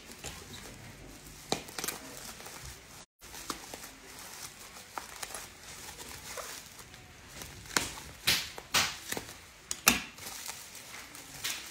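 Black plastic wrapping crinkling and rustling as it is pulled off a wrapped package by hand, in irregular crackles that grow sharper and more frequent about eight to ten seconds in.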